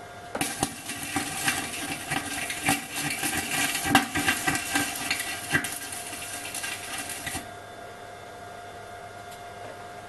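Electric arc welding on the thin 3 mm high-tensile steel of an LPG gas cylinder: a steady crackling sizzle full of sharp pops that starts about half a second in and cuts off suddenly a couple of seconds before the end.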